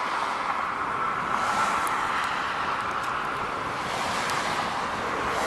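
Steady roadside traffic noise from vehicles passing on a highway, swelling a little in the middle as a vehicle goes by.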